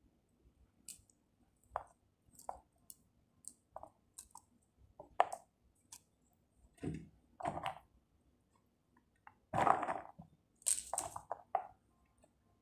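A pomegranate being pulled apart by hand: irregular clicks and crackles as the seeds are pried loose from the rind and pith, with a louder stretch of crackling and tearing about ten seconds in.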